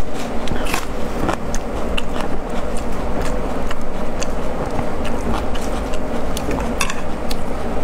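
Chewing, with scattered small clicks as chopsticks pick up slices of braised pork belly from a metal tray, over a steady low rumble of background noise.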